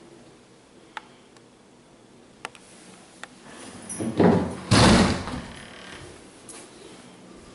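Metal-framed glass shower door being moved: a few light clicks, then a loud sliding noise about four seconds in that lasts about a second and a half.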